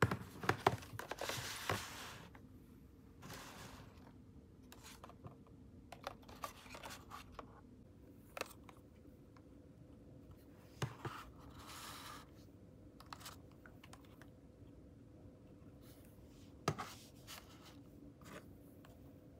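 Clear plastic lip balm boxes being handled: crinkling and scraping of the plastic, loudest in the first two seconds. After that come scattered light clicks and taps of the boxes against a desk.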